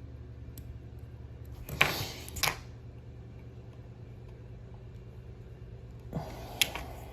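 Steady low electrical hum with brief bench-handling noise: a rustle with a sharp click about two seconds in, another click shortly after, and one more rustle and click near the end.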